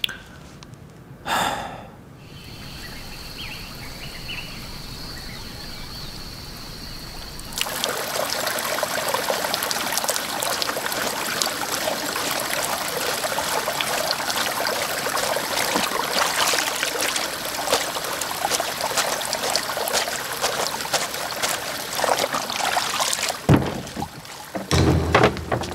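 Water pouring from a bamboo pipe into a stone trough and splashing steadily as clothes are washed by hand in it, the rush of water coming in about a third of the way through. A few sharp knocks sound near the end.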